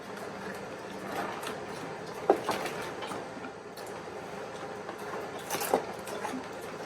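Rustling and crinkling as fried chicken and its foil wrapping are handled, with scattered small clicks and two sharper taps, one a little over two seconds in and one near the end.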